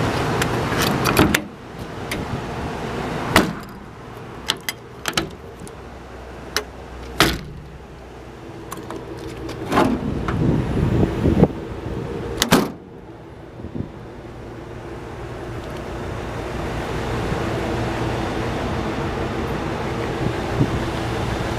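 Clicks and metal knocks of a utility truck's side compartment door being handled, with its recessed paddle latch worked, loudest in a cluster just before the middle. A steady rushing noise drops away about a second in and builds back up through the second half.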